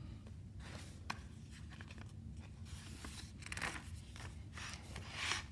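Pages of a picture book being handled and turned: soft paper rustles and scrapes, with a small click about a second in.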